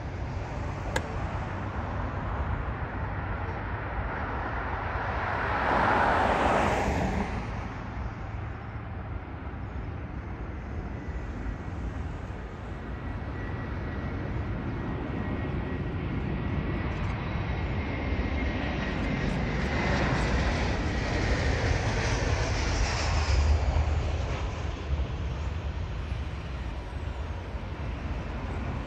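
Jet airliner engine noise that swells about six seconds in and again more broadly around twenty to twenty-four seconds, with a faint high whine in the second swell. Wind rumbles on the microphone throughout.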